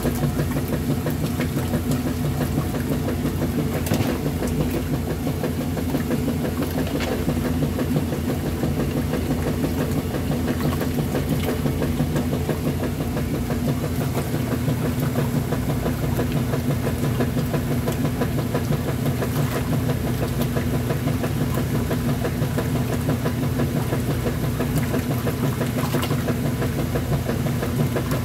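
Kenmore top-loading washing machine running with sudsy water in its open tub, a steady low mechanical hum that holds unchanged throughout.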